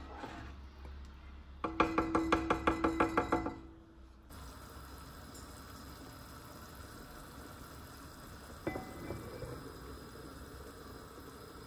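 Liquid glugging as it is poured into a pot of tomato mixture, a quick run of about a dozen glugs over two seconds. Then a steady soft hiss of the pot heating, with one light clack near the end.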